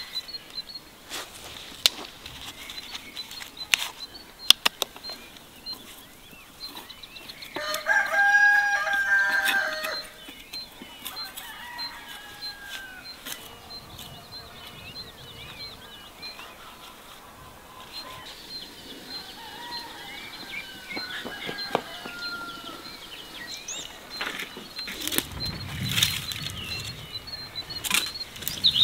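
A rooster crows once, loudly, about eight seconds in, over faint high chirping of small birds. Scattered knocks and rustles of garden work follow, with sticks being handled near the end.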